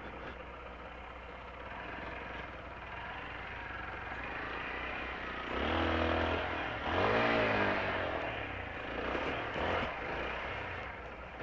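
Motorcycle riding slowly over a rough road, its engine running under steady riding noise. About six to eight seconds in, a louder pitched sound comes in, first steady and then bending up and down in pitch.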